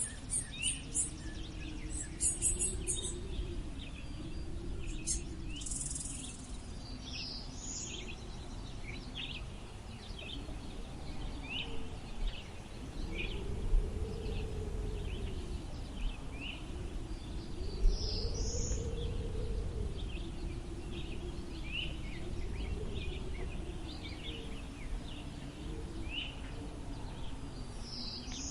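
Wind blowing steadily, with a low rumble and a whistling tone that rises and falls in slow gusts. Many short bird chirps run over it, with rapid high insect-like chirping in the first few seconds and a high falling bird call three times.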